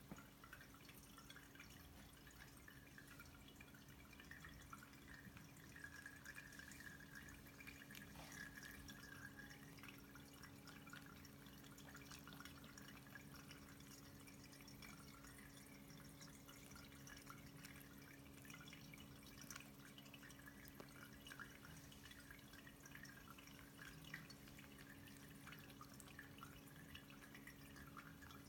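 Electric pet drinking fountain running, faint: water trickling and dripping over a steady low pump hum.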